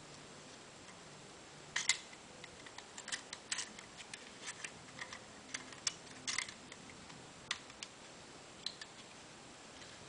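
Irregular plastic clicks and taps from a white universal travel plug adapter handled by hand, its round European pins and lock slider being worked. The clicks start about two seconds in, with the loudest then and around six seconds, and stop near nine seconds.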